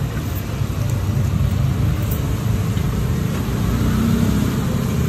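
A steady, low engine rumble.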